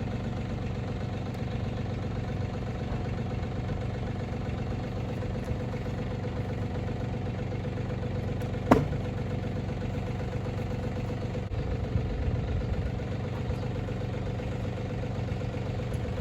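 Front-end loader's engine idling steadily while the bucket holds a vehicle body, with one sharp knock about halfway through and a few lighter knocks shortly after.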